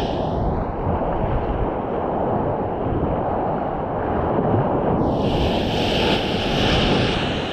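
Ocean water sloshing around a camera held at water level, with surf and wind buffeting the microphone in a dense, low rumble. The sound turns brighter and hissier for the last couple of seconds.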